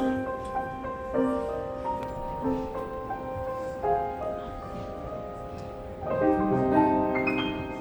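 Piano played slowly and freely, sparse chords and single notes left to ring, with a fuller chord struck about six seconds in.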